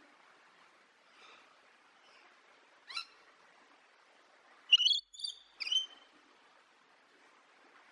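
Lorikeet calling: a few short, high-pitched calls, the loudest a quick run of three about five seconds in.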